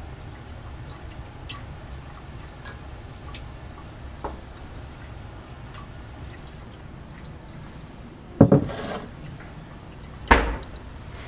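Water from a condenser hose trickling steadily into a lab sink, with a few faint clinks, then two sharp knocks of lab glassware and clamps being handled about two seconds apart near the end.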